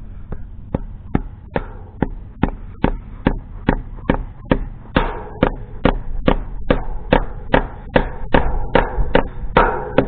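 A hammer striking in a steady rhythm, about two and a half blows a second, while a gate latch is being reworked.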